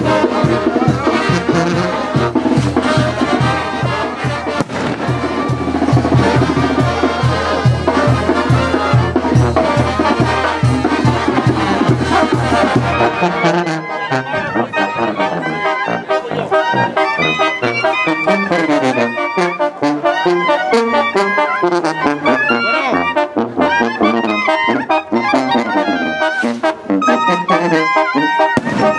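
Brass band music with trumpets and trombones over a pulsing bass, in the style of a Mexican banda. About thirteen seconds in, the low bass drops out and the horns carry on.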